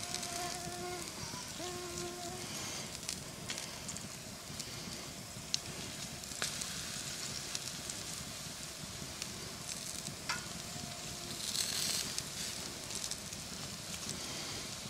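Open campfire crackling with scattered pops, under a steady sizzle of pork shoulders on the grate over the coals as barbecue sauce is brushed on. A brief louder sizzle comes near the end.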